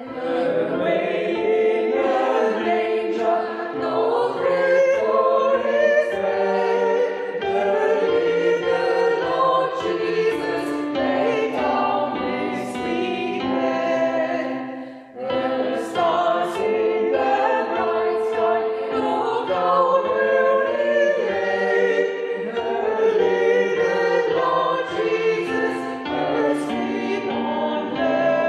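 Choir singing, with a brief break between phrases about halfway through.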